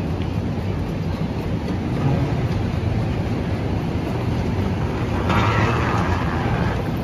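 Steady low rumble of a railway station platform, with a short hiss about five seconds in lasting under two seconds.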